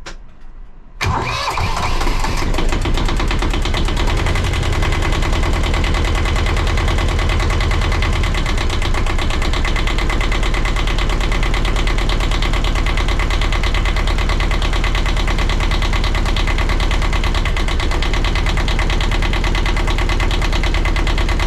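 Sailboat's inboard diesel engine starting about a second in, then running steadily at idle.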